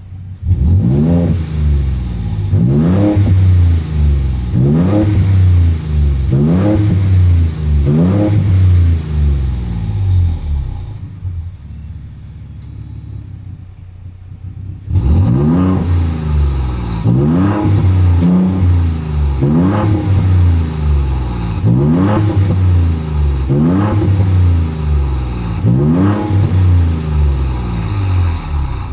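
Ford Raptor's 3.5L twin-turbo EcoBoost V6 through a VR Performance valvetronic cat-back exhaust, heard from outside the truck, revved in quick repeated throttle blips about once a second. It drops to a lower, steadier idle for a few seconds near the middle, then the revving resumes.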